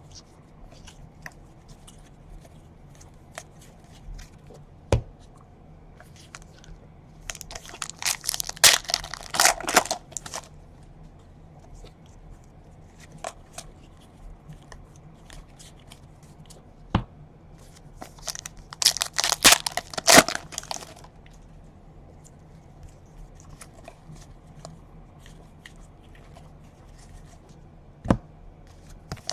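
Trading-card pack wrappers being torn open and crinkled: two bursts of tearing and rustling, one about eight seconds in and one about nineteen seconds in, with a few single sharp clicks between.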